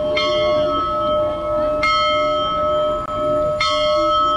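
A large bell struck hard three times, less than two seconds apart, each stroke ringing on into the next.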